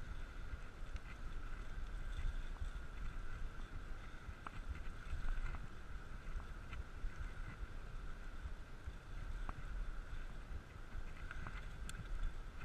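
Wind rumbling over the microphone of a camera on a moving bicycle, over a steady hum from the tyres rolling on the road, with scattered small clicks and rattles from the bike.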